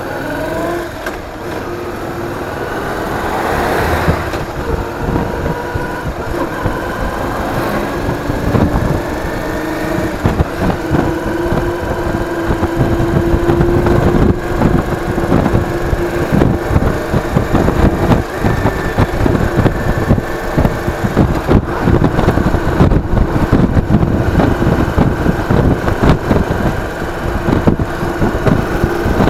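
Motorcycle engine running while riding, with wind buffeting the action camera's microphone. Both get louder over the first half as speed builds, then hold steady.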